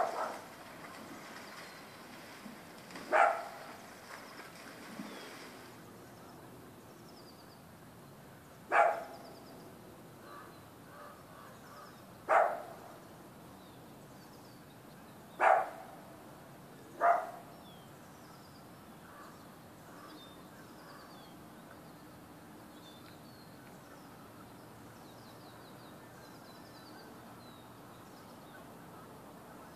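Six loud single barks a few seconds apart, the last a little past halfway, with faint bird chirps in between.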